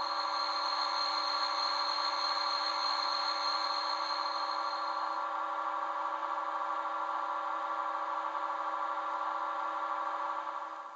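Sound decoder of a Roco DB class 110 model locomotive playing a steady electric-locomotive running sound through its small speaker, with a high whine that stops about five seconds in; the whole sound cuts off near the end.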